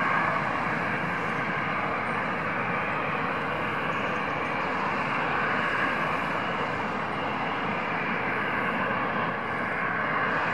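Boeing 737-800 BBJ2's CFM56-7 turbofan engines running at taxi power: a steady jet whine and rush.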